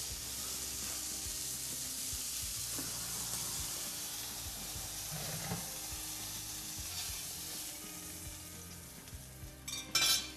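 Duck breast sizzling in its rendered fat in a stainless steel sauté pan, a steady hiss that fades off, then a short loud metallic clatter near the end as the pan goes into the oven.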